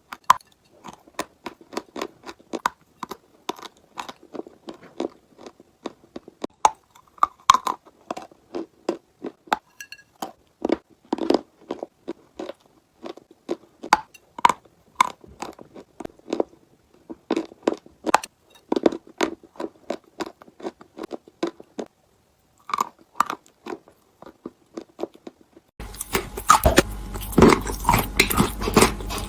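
Close-up crunching of chalk being bitten and chewed, in quick runs of sharp crunches with short pauses. About three seconds before the end, a steady hiss comes in under louder crunches.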